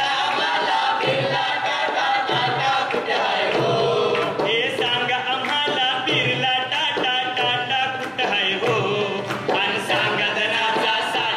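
A group of men and women singing a song together on microphones, led by a man's voice, over a steady low beat about once a second.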